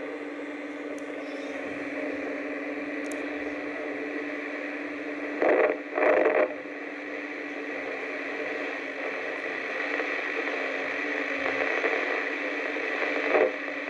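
Yaesu FT-857 receiving the International Space Station's Russian-segment FM channel with no voice on it: a steady radio hiss with a constant low hum tone. Two short, louder bursts of noise come about five and a half and six seconds in.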